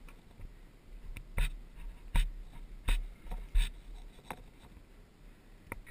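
A string of sharp knocks and clicks, roughly one every three-quarters of a second, over a low wind rumble on the microphone. No engine is heard running.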